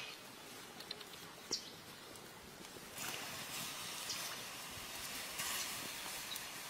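Water poured into a hot wok of shrimp and chillies, a steady hiss that starts suddenly about three seconds in. Before it, only faint background with a few small clicks.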